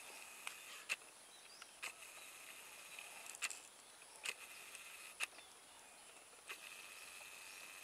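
Red-breasted parakeets giving short, sharp calls now and then, about eight in all, over a steady high insect hum.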